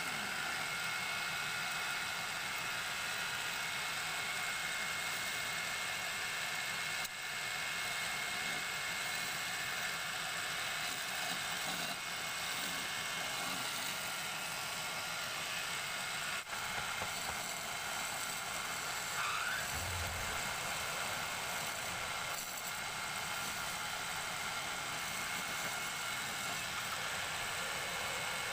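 Wood lathe running steadily while a hand-held turning tool cuts a spinning wooden spindle, with an even hiss and a steady whine. A brief low thump about two-thirds of the way through.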